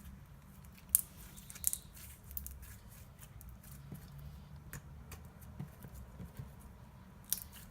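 Borax-activated glue slime squeezed and stretched by hand, giving scattered sharp clicks and crunches, the loudest about a second in.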